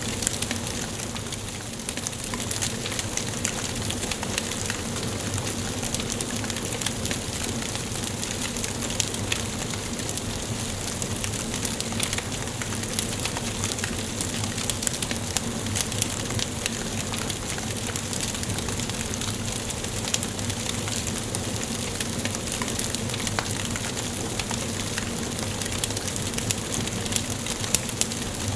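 Wood fire burning in a fireplace: a steady hiss with frequent small crackles and occasional louder pops.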